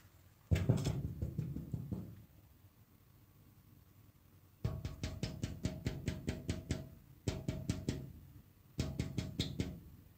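Drum-like percussion: one heavy hit about half a second in that rings on and fades, then three short runs of fast, even beats, about five a second, in the second half.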